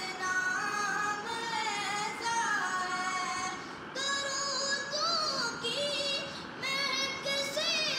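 Background music: a high voice singing a wavering, melismatic melody.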